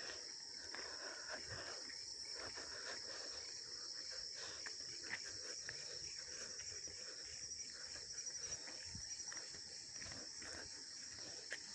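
Steady, high-pitched chorus of night insects, such as crickets, with faint footsteps on a dirt path.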